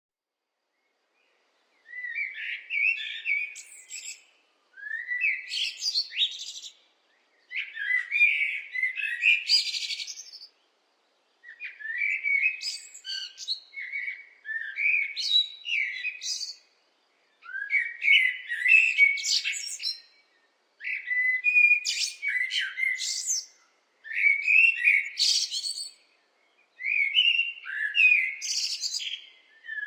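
A blackbird singing: a run of warbling song phrases, each two to three seconds long with short pauses between, starting about two seconds in.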